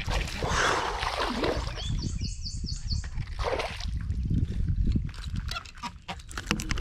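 A hooked bass splashing and thrashing at the water's surface as it is reeled in on a baitcasting rod, with a short run of quick clicks about two seconds in.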